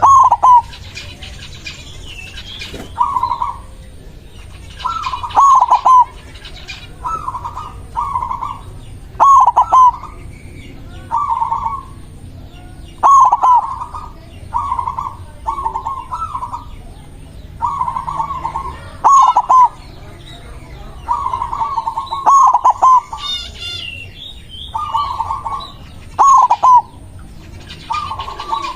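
White zebra dove (perkutut) cooing, a run of short rolling coo phrases repeated every second or two, with faint high chirps of other small birds in the background.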